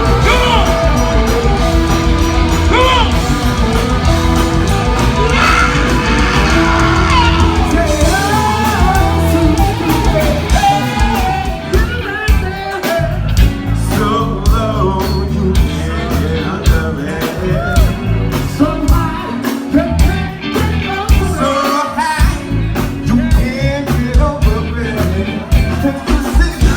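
Live funk band playing loudly with sung vocals; the drum beat stands out more clearly after the first several seconds.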